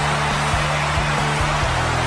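Arena goal song with bass and guitar playing loudly over a steady roar of cheering from the crowd after an NHL goal.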